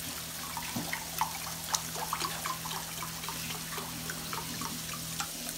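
Chicken stock pouring from a carton into a glass measuring cup: a steady trickle with many small gurgles and drips.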